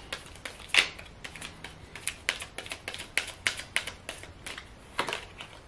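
Tarot cards being shuffled in the hands: a run of quick, irregular light clicks and snaps as the cards slide and flick against each other.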